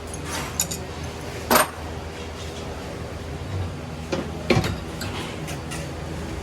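Metal parts clinking and knocking over a steady machine hum. The loudest clink comes about a second and a half in, and two more come close together about four and a half seconds in.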